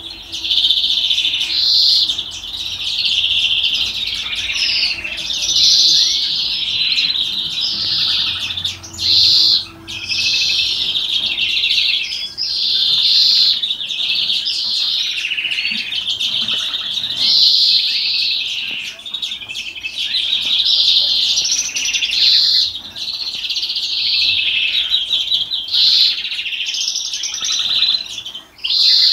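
European greenfinch singing a long, almost unbroken run of chirps and rapid trills, the song that breeders call 'salma', with two short breaks.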